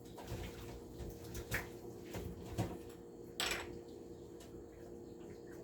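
A few light knocks and clicks of kitchen containers being handled on a counter, the clearest about a second and a half in, again near two and a half seconds and just after three, over a steady low hum.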